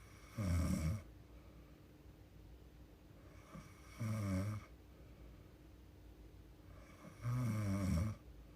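A young woman snoring in her sleep: three snores, about three and a half seconds apart, each lasting well under a second, the last one slightly longer.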